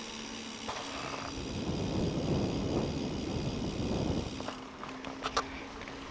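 Kellys Gate 50 bicycle rolling on smooth new asphalt: steady tyre and wind noise that swells for a couple of seconds in the middle, with a few faint clicks near the end.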